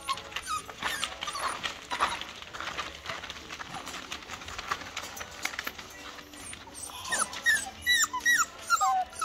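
Six-week-old Border Collie puppies whining, short high falling whimpers clustered near the end, with scuffling and rustling of small bodies on a plastic-covered floor in between.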